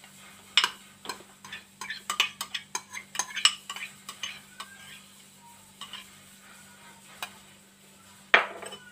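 A utensil clicking and scraping against a red plastic strainer as grated cucumber is pressed to strain out its juice. There is a quick run of clicks and scrapes that thins out, and a sharp knock near the end.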